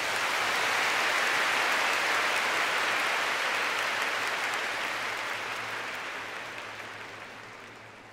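Large concert crowd cheering and applauding in the pause after a song ends. The cheer holds for a few seconds and then gradually fades away.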